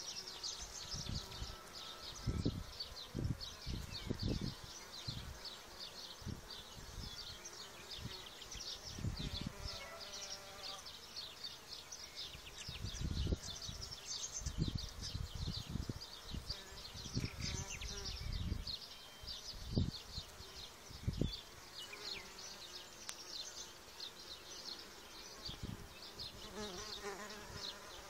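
Solitary mason bees buzzing and flying around a nest block of mud-capped tubes, with a dense, fast high-pitched flutter throughout. Scattered low thumps come and go, the loudest about halfway through and around two-thirds of the way in.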